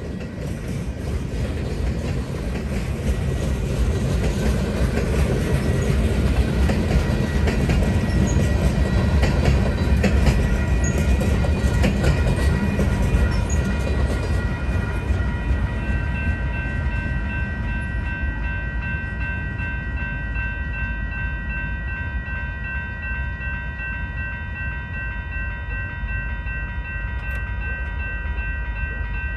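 Freight cars rolling past over a grade crossing, a loud rumble with wheels clicking over the rails that fades away past the middle as the last cars go by. The crossing's warning bell rings steadily throughout and is heard plainly once the train has gone.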